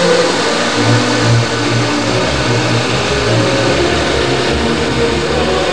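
Storm wind blowing hard across a ship's deck and rigging and buffeting the camcorder microphone: a loud, continuous rush with an uneven low rumble underneath.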